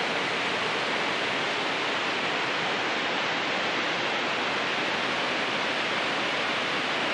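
Large waterfall pouring into a rocky pool: a loud, steady rush of falling water that holds at one level without a break.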